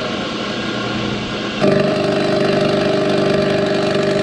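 Vertical milling machine running an end mill through an aluminum Honda K24 valve cover, taking light passes: a steady machine drone that gets louder about a second and a half in, with a steady multi-tone hum as the cutter works the metal.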